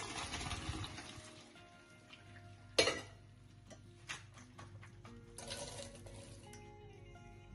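Pasta water draining through a stainless steel colander, fading out over the first second or so, under soft background music. A sharp metal clank of the colander comes about three seconds in, then a brief rustle as the drained rigatoni slide from the colander into a steel pot.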